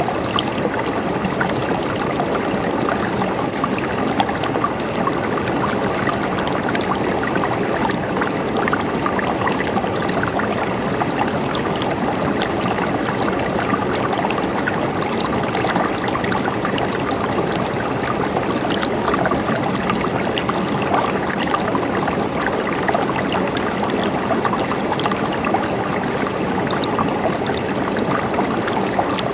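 A stream of water flowing steadily and evenly, with no change in level.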